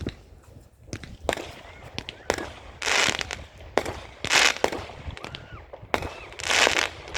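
Fireworks going off: a string of sharp single bangs with three louder crackling bursts, each lasting under half a second, about three, four and a half, and seven seconds in.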